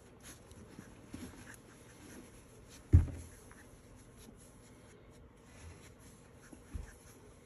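Soft rustling of towels and fur as puppies are handled in a plastic bin, with one loud sharp thump about three seconds in and a smaller one near the end.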